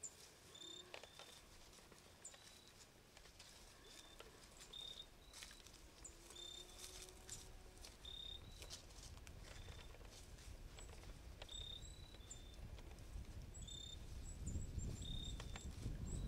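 Quiet woodland sounds: short, high chirps repeating every second or so, scattered soft clicks and rustles, and wind noise building near the end.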